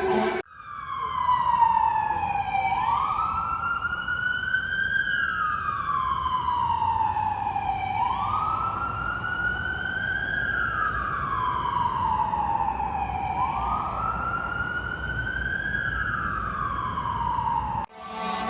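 FDNY emergency vehicle's siren in wail mode, gliding slowly up and down in pitch about once every five seconds. It starts abruptly about half a second in and cuts off just before the end.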